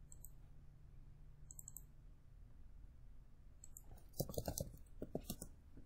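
Faint computer mouse clicks while navigating a file-save dialog: a few single clicks spread out, then a quick cluster of clicks from about four to five and a half seconds in.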